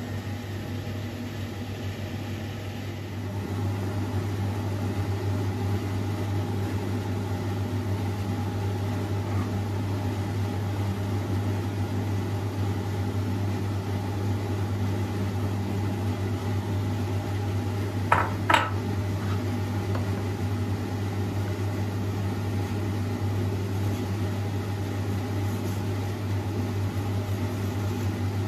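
A steady machine hum that grows a little louder a few seconds in, with two sharp clicks in quick succession about two-thirds of the way through.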